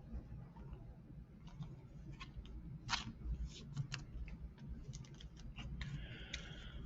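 Trading cards being slid into plastic card sleeves: scattered light clicks and taps, with a short plastic rustle near the end.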